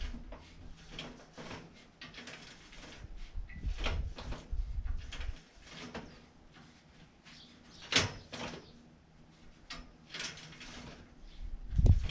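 Scattered metal clicks and rattles of steering roller chains and countershaft sprockets as the steering wheel is worked back and forth, with one sharper click about eight seconds in.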